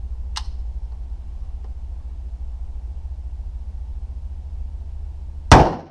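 A single very loud shot from an M4 carbine in 5.56 mm near the end, over a steady low rumble; a faint sharp click comes near the start.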